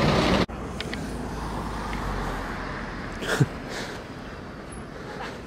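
Roadside street ambience with road traffic, after a loud noise cuts off half a second in. Just over three seconds in, one short sound drops steeply in pitch.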